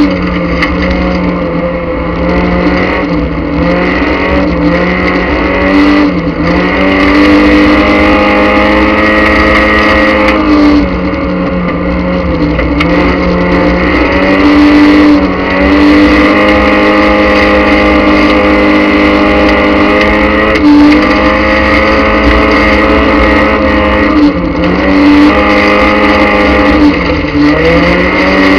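Speedway race car engine heard from inside the cockpit, running hard at high revs, its pitch dipping briefly a few times as the throttle eases and then climbing back.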